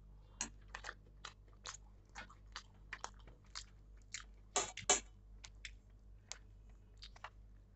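A person chewing a mouthful of butter-toasted pav with bhaji: a quick, irregular run of wet mouth clicks and smacks, the loudest pair about halfway through.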